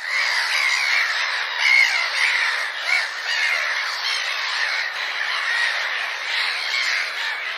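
A flock of many birds calling at once in a dense, unbroken chorus of overlapping calls, starting and stopping abruptly.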